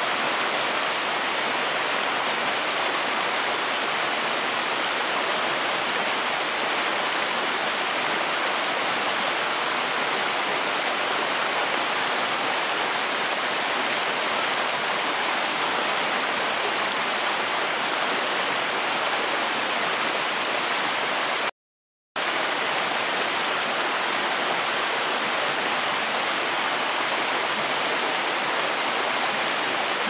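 Shallow rocky rainforest river rushing steadily over and between boulders. The sound cuts out completely for a split second about two-thirds of the way through.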